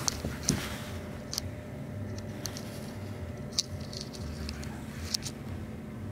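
Kittens' paws and claws moving on carpet and a fleece blanket: scattered light ticks and soft pattering at irregular intervals.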